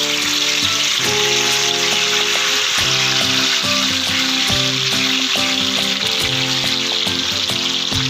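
Whole marinated chicken frying in hot oil in a frying pan, a steady sizzling hiss.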